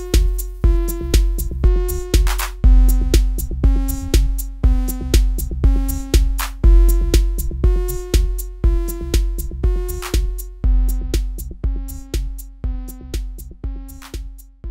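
Electronic background music: a steady drum-machine beat, about two low kicks a second, under held synth chords that change every couple of seconds.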